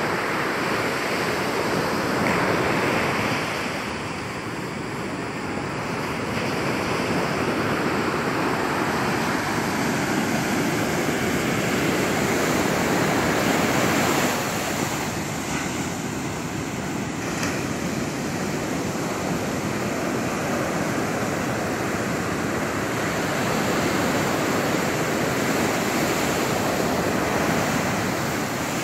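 Sea surf breaking and washing up a sandy beach: a continuous rushing that swells and eases every several seconds.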